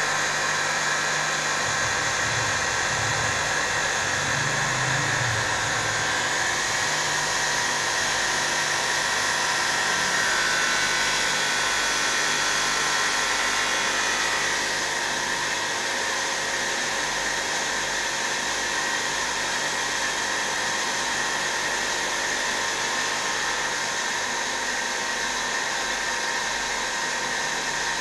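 Glass edging machine running steadily, its motors whirring as a glass sheet is carried along the chain-track conveyor. A high whine in the noise weakens about halfway through.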